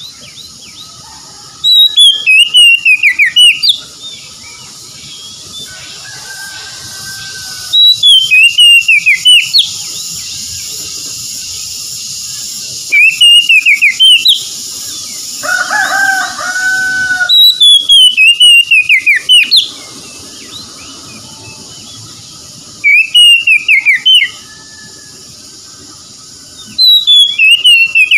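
Oriental magpie-robin (kacer) singing loud, repeated song phrases of descending whistled notes with fast chattering, about six bouts of a couple of seconds each, several seconds apart.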